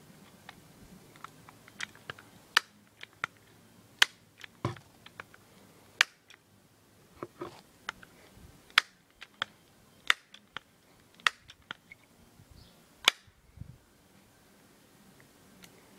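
Crosman 1377 multi-pump pellet pistol being worked and fired: a string of sharp cracks and clacks, several loud ones among many fainter clicks, at uneven gaps of one to two seconds.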